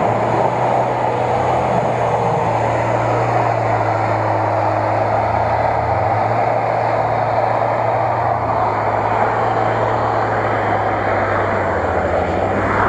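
Lada Niva's engine running at steady revs, a continuous drone, as the SUV drives through deep mud ruts.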